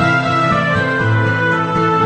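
Background music: an instrumental piece with held notes.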